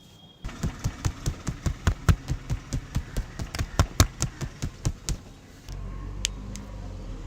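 Fast, even hand slaps of a tapping massage, about five a second for some four and a half seconds. A steady low rumble follows near the end, with a couple of single clicks.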